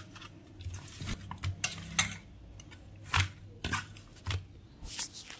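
Raw fish pieces being mixed by hand with turmeric and salt in a stainless steel bowl: irregular wet squishing, with pieces clicking and knocking against the metal.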